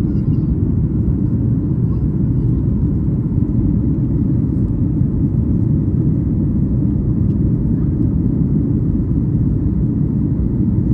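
Steady low rumble of a Boeing 737-8200's CFM LEAP-1B jet engines and airflow, heard inside the passenger cabin.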